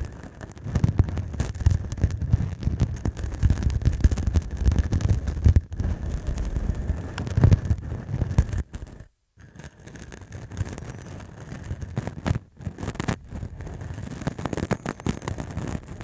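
Short, rough stubble scratched and rubbed directly against a handheld recorder's microphone capsule: dense crackling scratches over a heavy low rumble. It cuts out briefly about nine seconds in, then carries on a little quieter.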